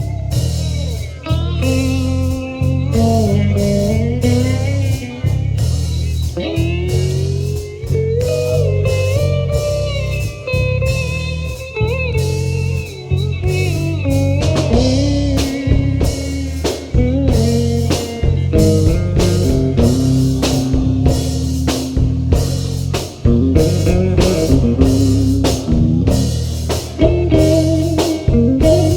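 Live stoner rock band playing an instrumental passage: an electric guitar lead line bending up and down in pitch over steady bass and drums.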